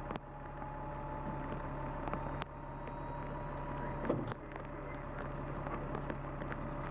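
An engine running steadily, with scattered sharp clicks and knocks over it.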